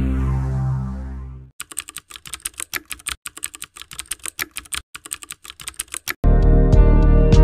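Music fading out, then a keyboard typing sound effect: rapid, irregular key clicks for about four and a half seconds. New music starts abruptly near the end.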